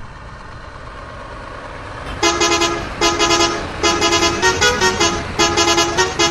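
A horn tooting in five quick groups of rapid, stuttering toots beginning about two seconds in, with the pitch changing partway like a short tune. A low steady rumble runs underneath.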